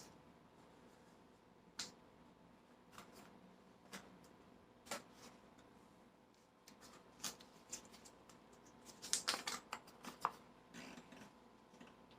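Faint, scattered light clicks and taps of kitchen items being handled during meal prep, with a quick run of them about nine seconds in.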